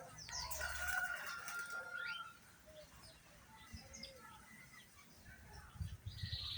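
Birds calling: several overlapping calls and whistles in the first two seconds, one of them a long held whistle, then fainter scattered chirps. A steady high-pitched buzz starts near the end.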